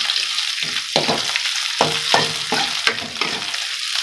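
Shallots, garlic and sliced red chillies sizzling in oil in a metal wok while a metal spatula stir-fries them, scraping and knocking against the pan about twice a second over a steady sizzle.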